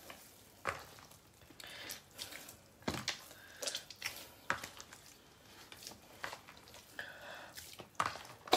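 Hands kneading soft, oily bread dough in a plastic basin: irregular wet squelches and slaps as the freshly added oil is worked into the dough and the ingredients come together.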